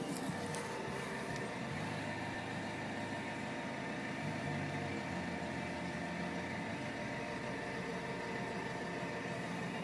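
Electric swivelling tow bar of a BMW X3 swinging out from under the rear bumper, its drive motor running with a steady, even hum.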